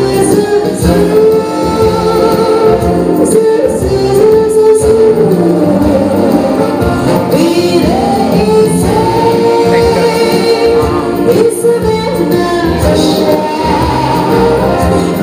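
Music: a song with a sung melody of long held notes that slide up and down, over a continuous instrumental backing.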